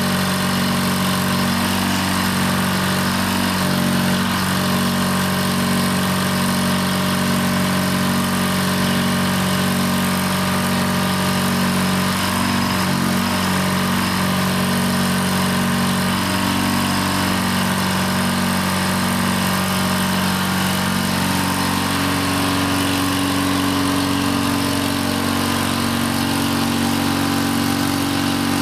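Engine running steadily, driving the hydraulics of a 1993 IMT 8600 lb crane while its boom is raised. Its pitch steps up about three quarters of the way through.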